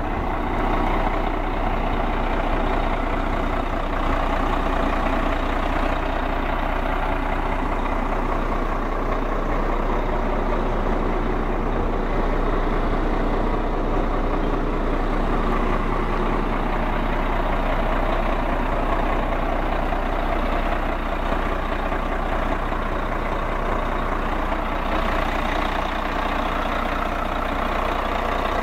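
Caterpillar diesel engine of a 2004 Peterbilt front-load garbage truck idling steadily.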